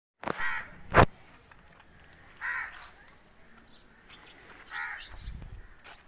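A crow cawing three times, roughly two seconds apart, each caw short and harsh. A single sharp knock comes about a second in, louder than the caws, and there are faint high chirps from small birds.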